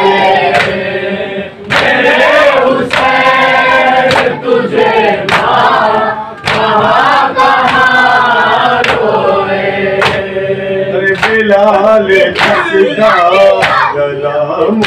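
A group of voices chanting a Muharram noha (a lament for Husain) in chorus, with sharp beats about once a second running through the chant.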